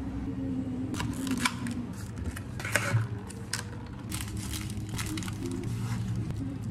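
Scattered sharp clicks, taps and light crinkling of hands working at a café counter, handling plastic drink cups and a paper cake box, over a low steady hum.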